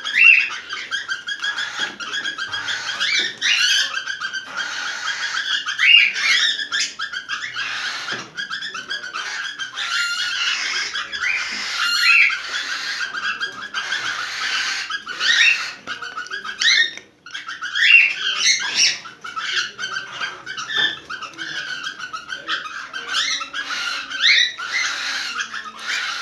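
A cockatiel chirping and whistling without pause, with a loud rising call every couple of seconds. These are its in-heat, breeding-season calls.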